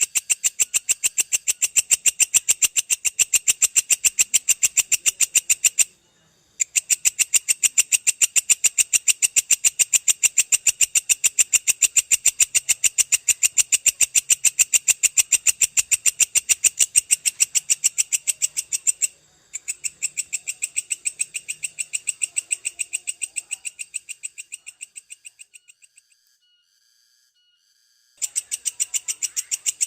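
Belalang kecek insect calling in long, fast, evenly pulsed rattling trills, high-pitched, breaking off briefly twice, then fading out and falling silent for about two seconds before starting again near the end.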